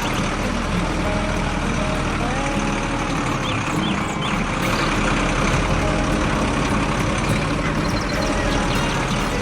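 Tractor engine running steadily, with a few brief high chirps about three and a half seconds in.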